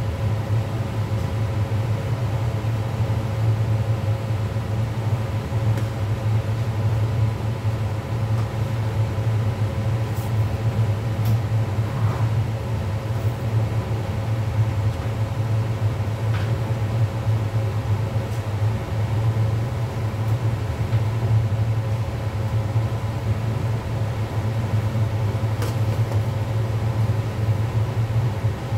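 Steady low hum of commercial kitchen equipment running, with a few faint clicks.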